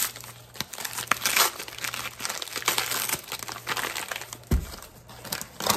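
Paper bag of granulated sugar crinkling and rustling as it is tipped and shaken empty over a bowl, with a low thump about four and a half seconds in.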